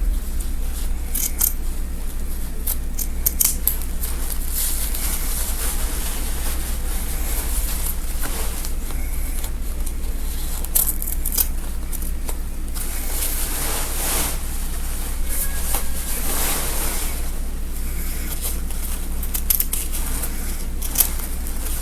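Scissors snipping through the fabric and stitching of a gown in short crisp cuts, with fabric rustling as it is handled, over a steady low hum.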